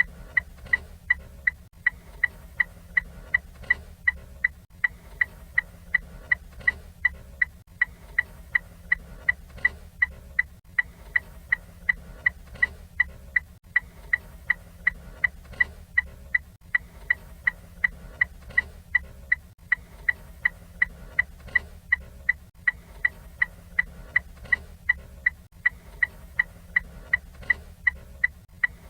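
Ford Fiesta turn signal ticking steadily: sharp, even clicks, about two to three a second, over a faint low hum.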